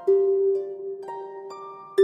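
Background music of plucked notes, each ringing on after it is struck, a new note about every half second.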